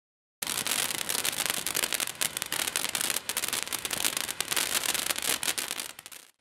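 Small firework fountain spraying sparks with a steady hiss and dense crackling. It starts about half a second in and dies away just before the end.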